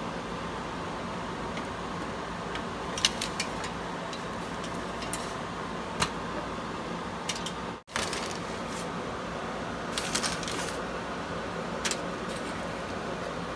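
Crumpled aluminium foil giving scattered light crackles as hands handle and press down a stuffed portobello mushroom resting on it, over a steady room hum. The sound cuts out briefly about eight seconds in.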